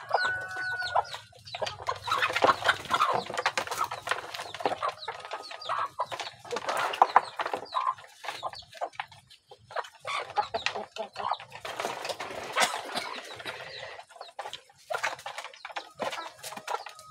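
A flock of village chickens (ayam kampung and Bangkok crosses) clucking as they crowd a feeding trough, with many short taps all through.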